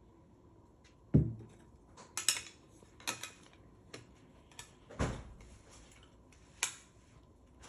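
Hard plastic trading-card holder being handled, giving about six sharp separate clicks and knocks. The loudest come about a second in and about five seconds in.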